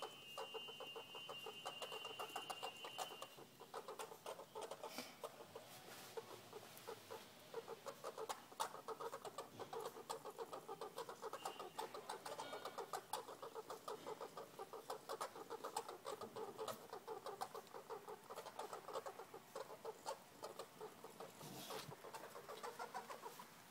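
Squirrels mating, giving a faint, fast, continuous clucking chatter of short repeated calls. A thin high steady tone sounds for the first three seconds.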